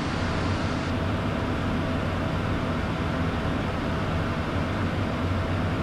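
Steady cockpit noise of a Beechcraft Premier 1A light jet climbing: an even rush of airflow and engine hum from its twin Williams FJ44 turbofans, with a faint steady tone running through it.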